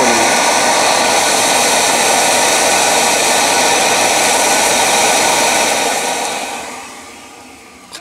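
Old vacuum cleaner running at full suction through a cyclone dust-separator attachment: a loud, steady rush of air with a high whine. Near the end it is switched off and the motor winds down.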